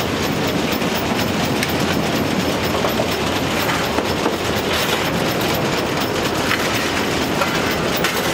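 Steady loud running noise heard from the cab of a ČSD class 423.0 steam tank locomotive under way, with its wheels clattering on the track.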